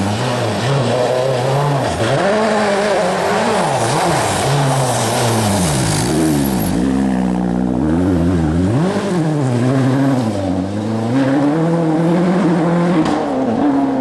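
Ford Focus WRC rally car's turbocharged four-cylinder engine driven hard on a loose forest stage. Its pitch climbs and drops again and again through gear changes and lifts, with one deep drop about halfway through before it picks up again.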